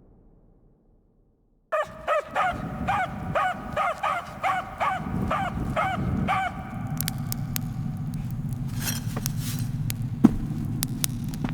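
A dog barking rapidly, about a dozen short high yelping barks, two to three a second, starting abruptly about two seconds in; after they stop, a low steady rumble with scattered sharp clicks.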